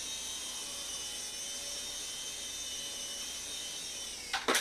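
Tiny electric motors and coaxial rotors of a nano RC helicopter running with a steady high-pitched whine. Near the end the whine drops and there are two short knocks as it comes down.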